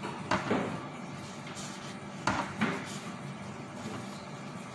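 Gloved hands handling flatbread wraps on a plate: two pairs of short soft knocks and rustles, about half a second in and just after two seconds in, over a steady background hum.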